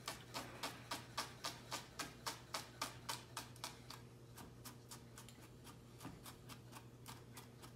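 Chef's knife mincing shallot on a wooden cutting board: quick, even taps of the blade on the board, about four a second, growing fainter and sparser about halfway through.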